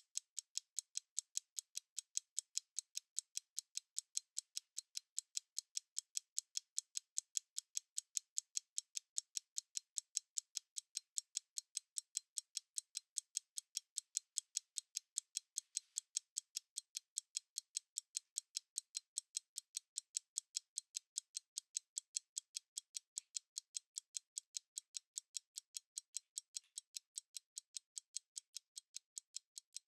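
Stopwatch ticking: rapid, evenly spaced, thin high clicks at a steady pace.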